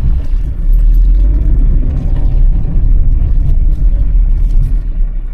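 Car on the move, heard from inside: a steady low rumble of engine and road noise.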